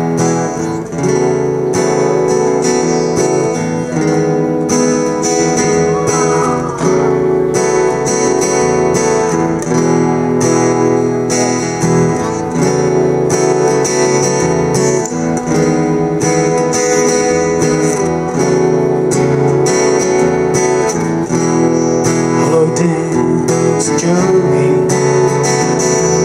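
Acoustic guitar strummed in a steady rhythm, playing alone as the instrumental introduction to a song.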